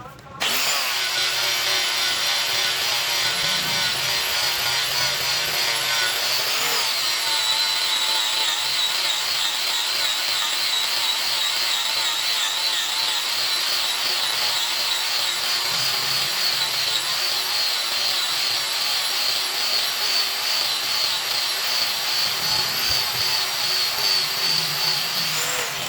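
Electric grinder running under load on stainless steel pipe, grinding and finishing the joint. The steady high whine wavers in pitch as the load changes. It starts about half a second in and stops just before the end.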